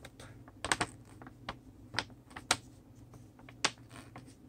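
Glossy paper leaflet crackling in the hands as it is held and flexed: a handful of sharp, irregularly spaced clicks and ticks.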